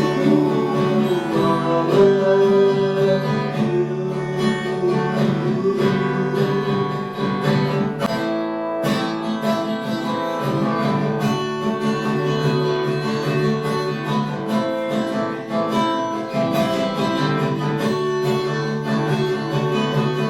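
Instrumental break of a song: strummed and picked acoustic guitar playing with no singing.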